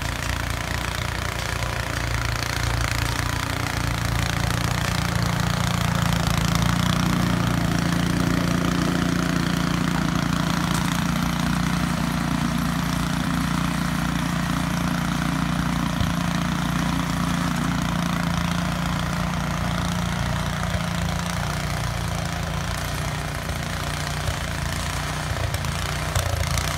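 Walk-behind gasoline snowblower engine running steadily under load as it throws snow from its chute.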